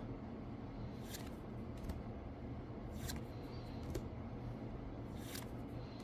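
Trading cards sliding against each other as single cards are moved through a hand-held deck: a few soft swishes about every two seconds, over a faint steady low hum.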